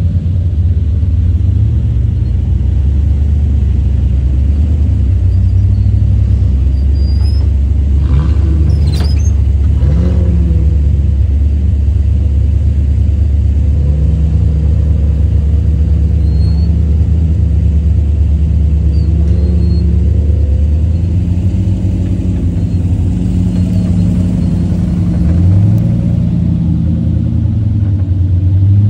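Vehicle engine running steadily while driving, over a low rumble, its pitch shifting up and down a few times.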